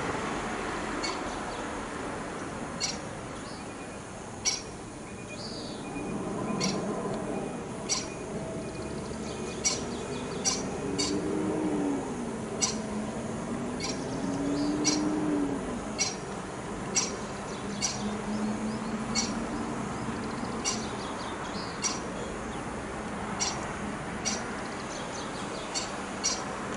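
Short, sharp bird calls repeated irregularly, about one every second or so, over a steady outdoor background. A slow, wavering low tone rises and falls in the middle.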